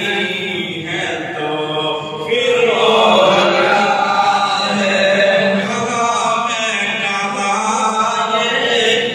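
A man singing a naat, an unaccompanied devotional poem in praise of the Prophet, in long held and ornamented notes through a microphone and loudspeaker. His voice gets louder about two seconds in.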